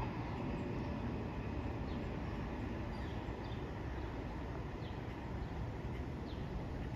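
Steady low rumble of a train, with a few short, falling bird chirps over it.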